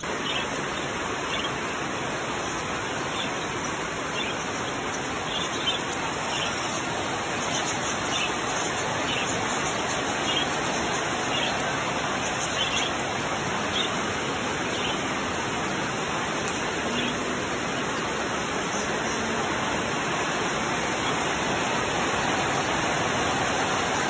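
Steady heavy rain, with budgerigars giving short chirps now and then over the first half.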